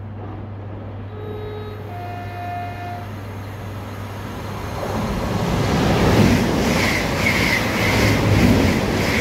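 ScotRail Class 385 electric multiple unit passing through at speed. Two short tones, a lower then a higher, sound early as it approaches. From about five seconds in a loud rushing rumble builds, with a regular beat of wheels running over the rail as the coaches go by.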